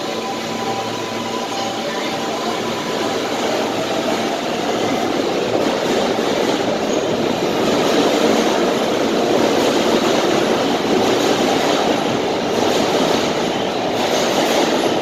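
New York City L-line subway train rolling along the platform. The rumble of its wheels on the rails grows louder over the first half and then holds steady.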